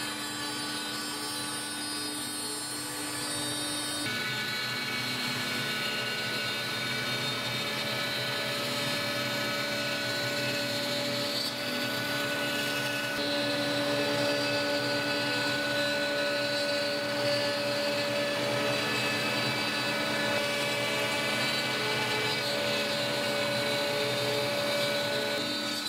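ATS-0609 CNC router spindle running with a steady whine while its bit carves a relief pattern into a wooden panel. The pitch of the whine shifts about four seconds in and again near the middle.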